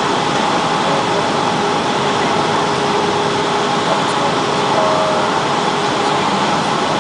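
Steady cabin noise of a Boeing 757 descending on approach: jet engine and rushing airflow heard from a window seat over the wing, with a faint steady hum underneath.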